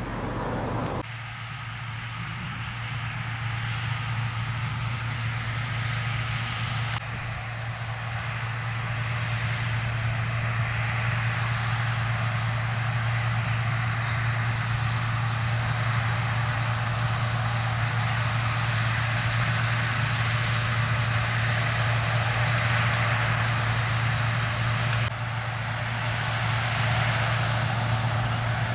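John Deere T670i combine harvester running under load as it harvests wheat: a steady low engine drone under a broad mechanical rush. The sound shifts abruptly a few times.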